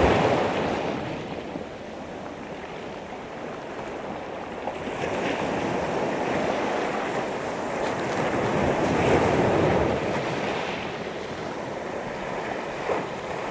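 Sea waves washing up a pebble beach and drawing back, swelling and ebbing every few seconds, with the clatter of pebbles rolling in the surf.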